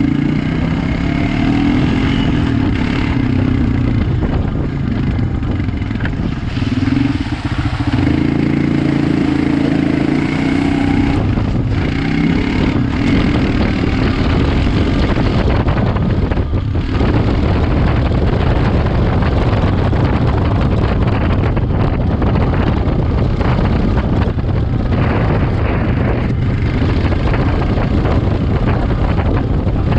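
Quad (ATV) engine running under throttle while being ridden, its pitch rising and falling over roughly the first eleven seconds. From about twelve seconds in, a rough rushing noise of wind on the microphone mixes with the engine.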